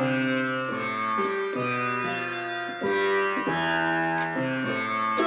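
Sitar sound from an electronic keyboard, played as a slow melodic line of plucked notes, a new note about every half second to second, each ringing on into the next.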